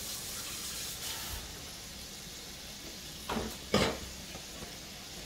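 Ground-beef slider patties sizzling steadily in grapeseed oil in a cast iron pot on medium-high heat. Two short, sharp noises a little past halfway, the second the louder.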